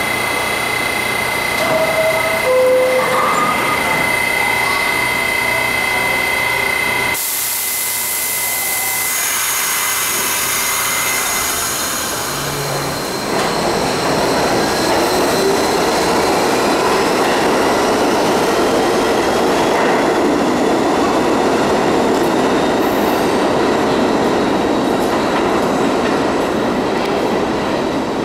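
R68 subway train at a station platform. It stands with a steady tone, and two short descending tones sound a couple of seconds in. About seven seconds in comes a sudden hiss, and then the train pulls out, its motors whining upward in pitch over wheel noise and clacking on the rails as it accelerates away.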